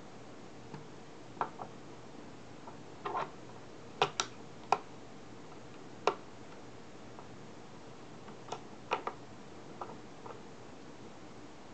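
Sharp small metal clicks and taps, about a dozen in short clusters, as a round cap is fitted into the socket of a Nikon MF-11 data back and the Nikon F2 camera body is handled.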